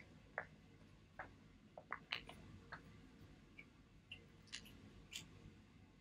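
Faint, irregular clicks and crinkles of a small plastic packet being handled and opened by hand.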